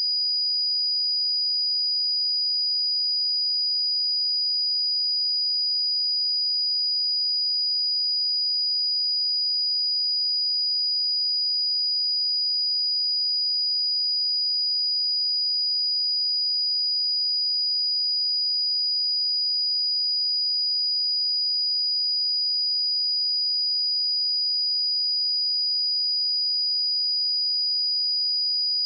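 A pure 4912 Hz sine-wave test tone, one steady high-pitched tone held at constant level, used to check speakers or headphones.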